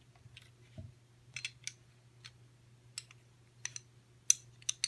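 Scattered light clicks and taps of metal pistol parts being handled as the recoil spring assembly and barrel are pulled out of a Smith & Wesson M&P 9mm's slide, over a faint steady low hum.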